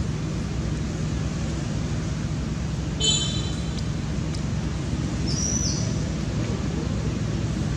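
Steady low background rumble with two short high-pitched chirps, about three and five and a half seconds in.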